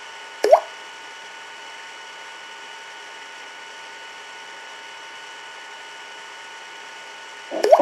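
Sharp knocks in an empty room: one about half a second in, then two more in quick succession at the very end, each a brief rising tock. Between them there is a steady background hiss with faint constant tones.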